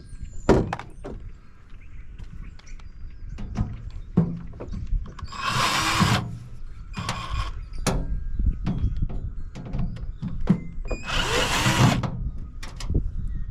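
Microwave oven being taken apart by hand: irregular clicks, clanks and thunks of metal parts and tools, with two roughly one-second bursts of harsh whirring noise around the middle and near the end.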